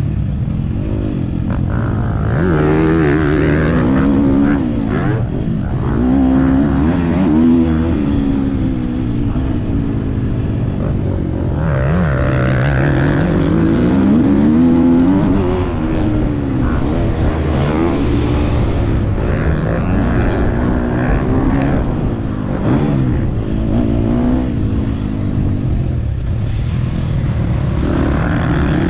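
Motocross bike engine under hard riding, its pitch repeatedly rising as the throttle is opened and dropping back at gear changes and when the rider backs off for jumps and turns.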